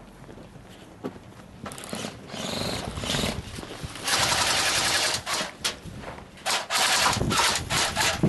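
Airsoft electric guns firing full-auto bursts: a long burst of about a second about four seconds in, then several shorter bursts near the end.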